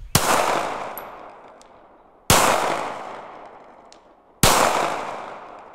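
Three slow, evenly spaced pistol shots from a Glock-pattern handgun, a little over two seconds apart. Each shot is followed by a long echo that dies away over the next two seconds.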